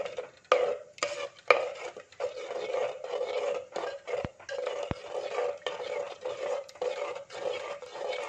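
A spoon stirring curd into cooked vegetables in a clay pot, swishing through the thick wet mixture and scraping and knocking against the earthenware in a steady rhythm of strokes, with a few sharper clinks in the first second and a half.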